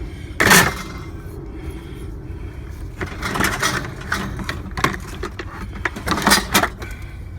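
Metal scrap being handled and loaded: a loud clank about half a second in, then bursts of rattling and clattering later on, over a steady low rumble from the vehicle.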